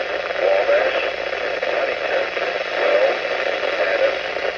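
Midland ER310 weather radio receiving a weak NOAA Weather Radio signal: steady static hiss, with a faint broadcast voice barely coming through underneath.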